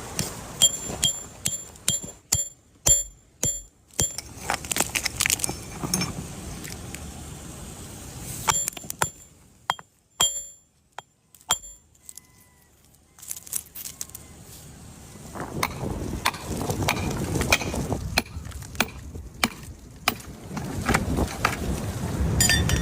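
A series of sharp taps, each with a brief metallic ring, about two a second, followed later by irregular knocks over a denser rustling noise.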